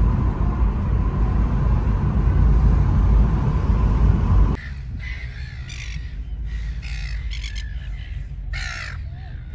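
Steady low road rumble inside a moving car, cutting off about halfway through. Then a flock of seagulls calling, several short harsh squawks, with a faint low hum under them.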